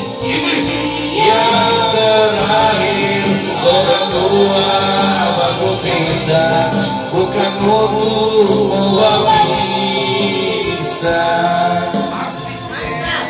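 A man singing into a handheld microphone, amplified, over a backing music track with steady percussion.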